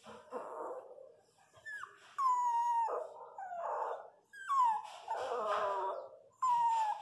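Miniature pinscher bitch in labour whimpering and crying as she strains to deliver a puppy: a run of high-pitched cries, several sliding down in pitch.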